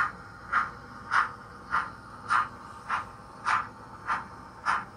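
Sound decoder in a Rapido OO gauge GNR Stirling Single model steam locomotive playing a steady exhaust chuff, just under two chuffs a second, as the model runs.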